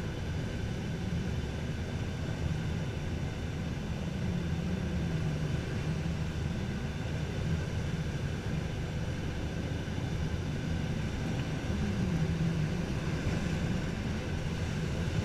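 Steady rush of air past a glider's cockpit on aerotow, under the low drone of the tow plane's propeller engine ahead, which rises and falls a little in pitch a few times.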